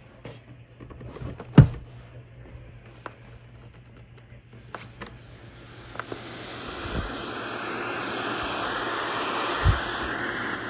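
Radio receiver static: faint crackle with sharp pops, the loudest about a second and a half in. A hiss swells from about six seconds in and then holds steady.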